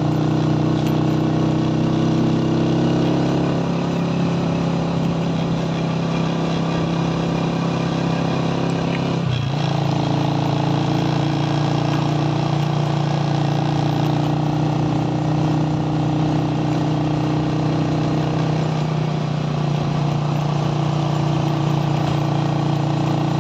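Motorcycle engine running steadily while riding, with a brief sharp dip in engine pitch about nine seconds in.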